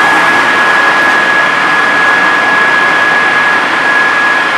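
Fire engine running its water pump while a hose sprays a burning car: a steady loud rushing noise with a constant high whine through it.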